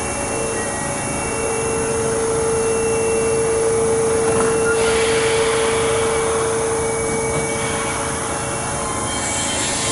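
Keihan electric train standing at the platform as its doors close: a steady electrical hum and a whirring machine noise, with a spell of hiss from about five to seven and a half seconds in.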